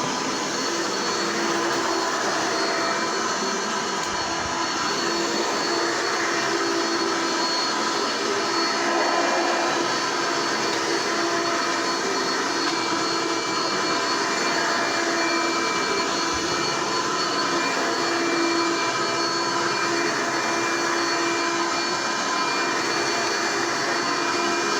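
1990s Hoover Elite commercial upright vacuum cleaner running steadily: a constant motor whine over the rush of air.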